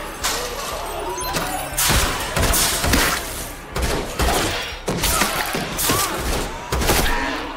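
Action-scene soundtrack with irregular gunshots and hits, about a dozen sharp reports over several seconds.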